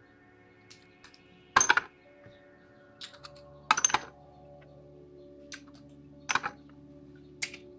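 Kitchen clatter: sharp clinks and taps of utensils and dishes being handled, the loudest about a second and a half in and again near four seconds, with lighter taps between.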